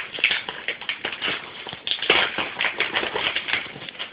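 Packaging paper being handled and pulled from a box, crinkling and rustling in quick irregular crackles.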